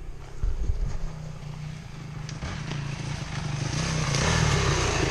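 Dirt bike engine idling, joined by a second dirt bike riding up that gets steadily louder from about three and a half seconds in.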